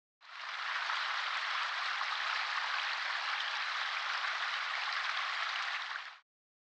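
A steady, rain-like hiss that fades in quickly and cuts off suddenly about six seconds in.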